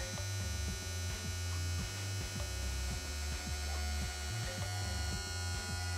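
Mercruiser Alpha 1 Gen 2 electric power-trim pump motor running with a steady hum and whine, raising the outdrive.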